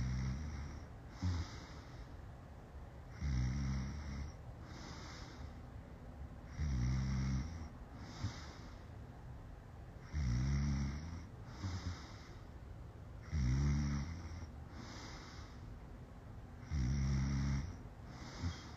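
A person snoring in their sleep: six loud snores on the breath in, evenly about every three and a half seconds, each followed about a second later by a shorter, softer breath out.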